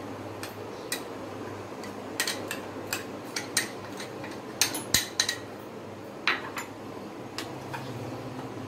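A metal spoon clinking and scraping against a plate and a bowl as thick poppy-seed and mustard paste is spooned over fried prawns: a string of irregular sharp clicks, loudest about five seconds in.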